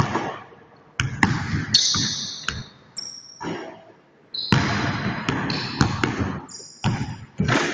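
A basketball bouncing on a hardwood gym floor, with repeated thuds and short high sneaker squeaks as a player plants and cuts through a footwork drill, echoing in the hall.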